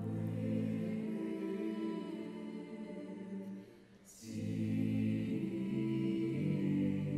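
Slow background music with sustained choir-like voices. Around four seconds in it dips almost to quiet, then swells back with a brief bright shimmer.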